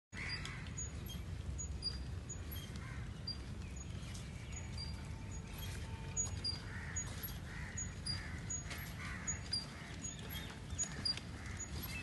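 Crows cawing off and on over open-air ambience with a steady low rumble, plus a faint high chirp repeating roughly once a second.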